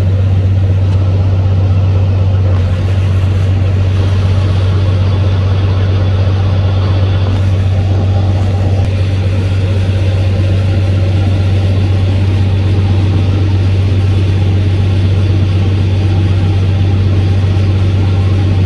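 Motor vehicle engine running at a steady low drone, with no change in speed.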